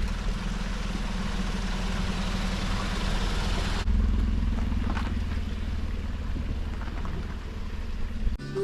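Motor vehicle running steadily: a low engine drone with a rushing noise over it. It steps up slightly in loudness about four seconds in.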